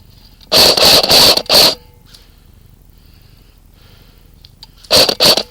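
Airsoft gun firing close to the microphone in short bursts: a cluster of three or four loud puffs about half a second in, then two more near the end.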